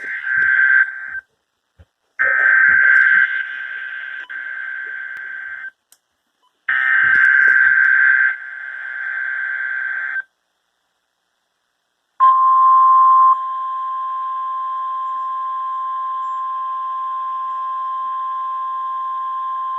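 NOAA Weather Radio alert signal for a Required Weekly Test: three harsh buzzing bursts of SAME digital header data, then, about twelve seconds in, a long steady alert tone heard through a weather radio receiver.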